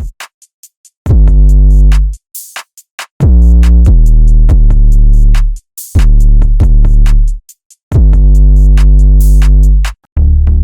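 Deep synth bass presets from the Xfer Serum software synthesizer playing four long held bass notes over a drum-machine beat with quick hi-hat ticks. Shortly before the end a new bass pattern of shorter, faster notes starts.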